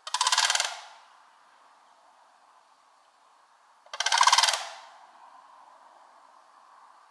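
Sandhill cranes giving their rolling, rattling bugle call twice: once at the start and again about four seconds in, each call lasting under a second.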